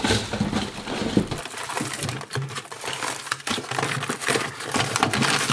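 Camera gear being rummaged through in a fabric storage bin: straps, bags and cardboard boxes rustling, with many small irregular clicks and knocks.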